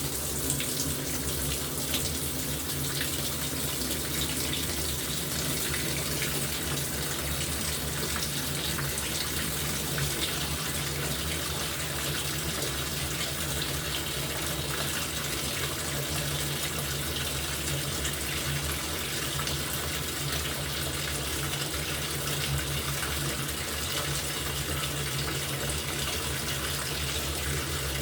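LG top-loading washing machine taking in water: a steady rush of water pouring into the tub over a low, even hum.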